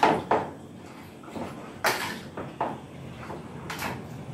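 Kitchen handling sounds: a few sharp clacks as a plastic storage container and a bowl of marinated chicken are handled on the counter. The loudest come at the very start, about two seconds in and near the end.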